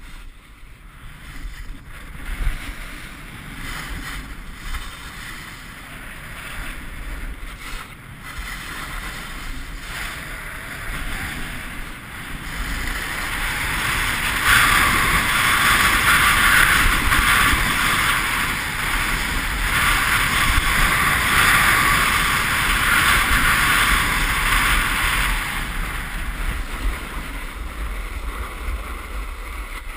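Wind rushing over an action camera's microphone and edges scraping and hissing across hard, icy snow during a fast downhill run. The scraping grows loud about halfway through, holds for roughly ten seconds, then eases near the end as the run slows.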